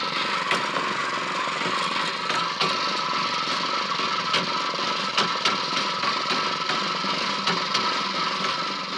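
A fishing boat's engine running steadily, with scattered short clicks over it.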